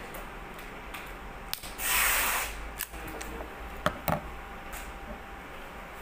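Hand crimping tool squeezed shut on an RJ45 plug to crimp it onto network cable: a short loud rasp about two seconds in, then a few sharp clicks just under two seconds later.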